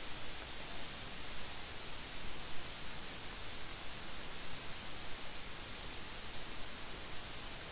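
Steady hiss of recording noise, with no distinct sound event.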